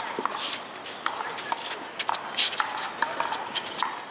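Pickleball paddles hitting a hard plastic ball in a fast rally: a quick, irregular series of sharp pops.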